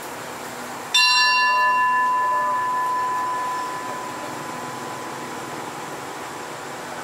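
Railway station platform bell struck once about a second in, ringing with several clear tones that fade away over a few seconds.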